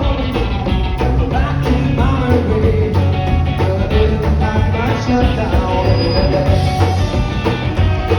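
Rock and roll music with a steady beat, drums, bass and singing.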